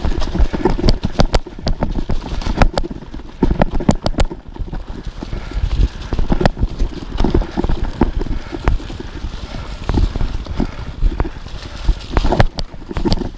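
Mountain bike rolling fast down a leaf-covered dirt trail: tyres running over leaves and ground, with frequent sharp clicks and knocks as the bike rattles over bumps, and wind buffeting the microphone.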